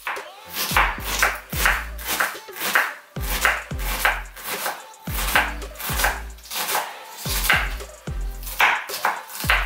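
Kitchen knife dicing onion on a wooden cutting board in quick, regular strokes, over background music with a deep bass beat.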